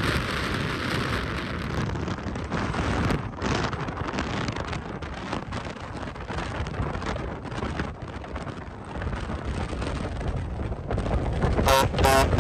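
Steady road noise of a Scania V8 truck driving: a low rumble with wind noise on the microphone. Music comes in near the end.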